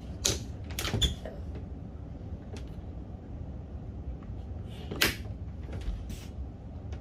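Air rifle being handled and readied on a wooden lab bench before firing: a few sharp clicks and knocks, a cluster near the start and a louder one about five seconds in, over a low steady room noise.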